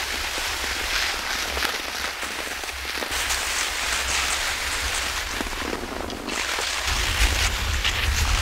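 Cross-country skis sliding over firm, crusted spring snow: a steady gritty hiss with uneven brighter scrapes. A low wind rumble on the microphone grows stronger about seven seconds in.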